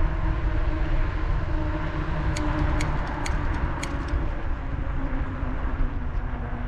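Wind and road noise from a moving bicycle ride: a heavy, steady low rumble with a steady hum over it. Four sharp ticks come close together a little past the middle.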